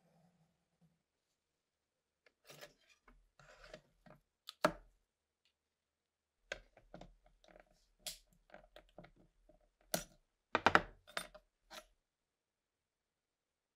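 Aviation tin snips cutting thin brass sheet: an irregular series of short crunching snips and sharp clicks, the loudest about four and a half seconds in and again around ten to eleven seconds.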